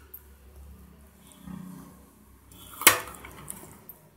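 Stainless steel idli plate knocking once against metal, a single sharp clink with a brief ring about three seconds in, amid quiet handling noise.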